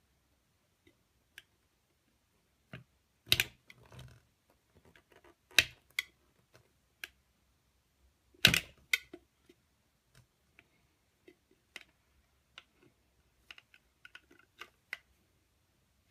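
Metal tongs clicking, tapping and scraping against a rigid clear plastic box as they pry at a device wedged inside. Scattered small clicks come with three louder knocks spread through it.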